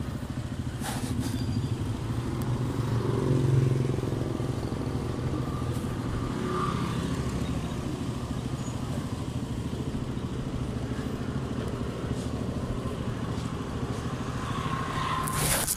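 Motorcycle engines running in the street: a steady low engine sound that swells about three to four seconds in, with a few light clicks.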